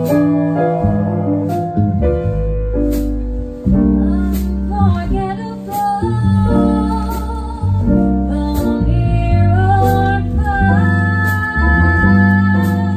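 Live jazz band playing a ballad with a woman singing the lead vocal over it.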